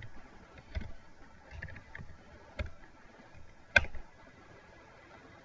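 Computer keyboard keys clicking in a few scattered keystrokes, then one sharper, louder click about four seconds in as Enter is pressed to run the line.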